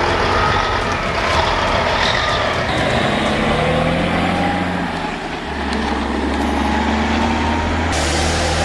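Heavy truck engine running steadily under load, its note shifting in pitch a couple of times.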